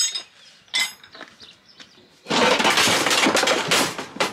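Two sharp metallic clinks of hand tools being set down among scrap, then nearly two seconds of loud clattering as scrap parts are pulled and knocked about.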